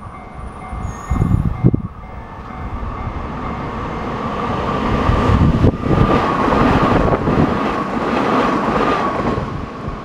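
A Hanshin 5500-series electric commuter train approaches along the track. Its rumble swells to its loudest about five or six seconds in, and a steady high tone runs through it. Low thumps about a second in.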